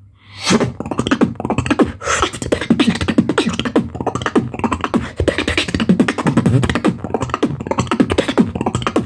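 Solo human beatboxing: a fast, dense run of mouth-made kicks, snares and clicks mixed with low pitched bass tones, starting after a brief pause.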